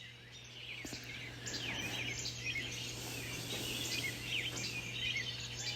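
Dawn chorus of several small songbirds: many quick overlapping chirps and short falling whistled notes.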